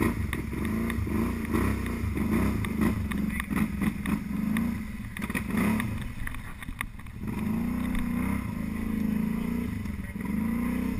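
Snorkeled ATV engine running as the quad rides slowly along a trail, its revs rising and falling over and over with the throttle.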